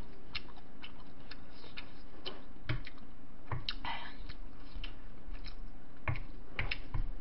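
A spoon clicking and scraping against a glass bowl as mixed rice bibimbap is stirred and scooped, with scattered sharp clicks and a few dull knocks.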